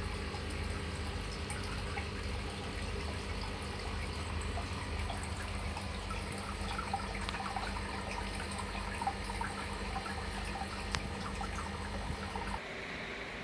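Aquarium filters running: water trickling and bubbling over a steady pump hum. The hum drops away shortly before the end.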